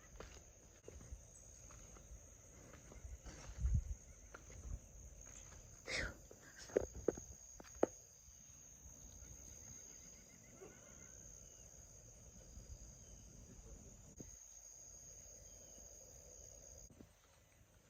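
A steady, high-pitched insect drone, faint and even. Between about three and eight seconds in, a few low thumps and sharp clicks stand out above it.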